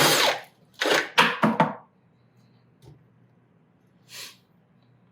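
Battery stud-and-joist drill with a carbide-toothed hole saw finishing a cut through wood and cement board, its noise dying away in the first half second. About a second in come four short, sharp bursts of noise in quick succession, then a single faint click and a brief soft hiss.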